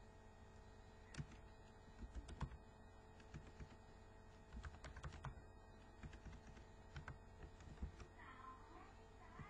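Typing on a computer keyboard: irregular runs of short key clicks with brief pauses between them.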